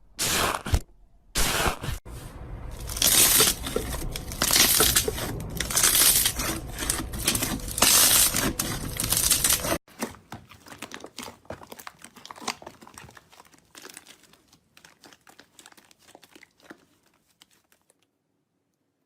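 Slime being squeezed and pressed by hand, making dense crackling, crinkling sounds. About ten seconds in it cuts abruptly to much fainter, sparse crackles that fade out.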